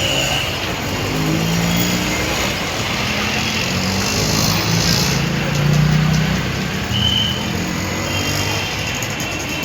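Steady road traffic noise: engines of passing vehicles running, with a short high tone about seven seconds in.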